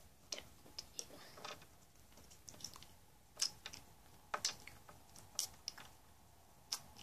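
Small plastic toy figures and toy food pieces being handled on a wooden surface: scattered light clicks and taps at irregular intervals.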